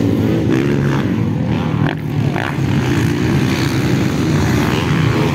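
Motocross dirt bike engines running hard around the track, their pitch rising and falling as the riders work the throttle.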